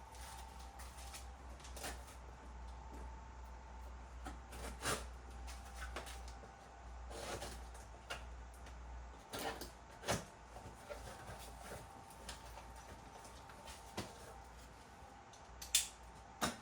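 Faint scattered knocks, clicks and rustles of a cardboard shipping box being opened and its contents handled, over a steady low hum.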